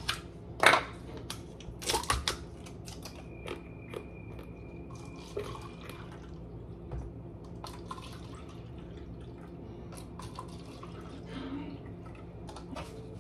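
Kitchen food-prep handling of a plastic seasoning container and a pot: a sharp click about a second in, a cluster of knocks around two seconds, then scattered light taps and rustles over a steady low hum.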